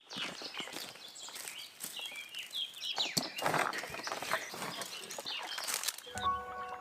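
Frogs croaking and birds chirping together in a busy wetland chorus of irregular calls. Music starts near the end.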